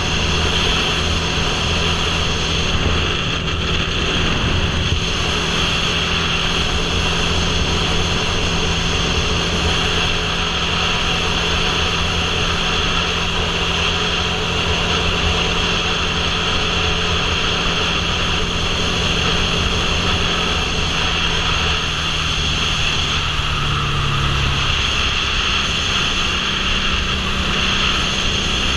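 Motorcycle cruising at steady highway speed: its engine note holds steady under a constant rush of wind over the camera microphone, then steps up slightly in pitch near the end.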